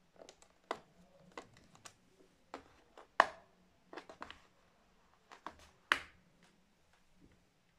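Irregular clicks and knocks of a screwdriver and hands on the plastic base of an HP 15-db laptop while its screws are being taken out, with two louder knocks at about three and six seconds in.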